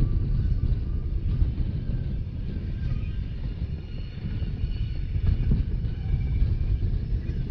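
Rhaetian Railway narrow-gauge train running at speed, heard from on board: a steady low rumble of wheels on rail, with faint high tones above it.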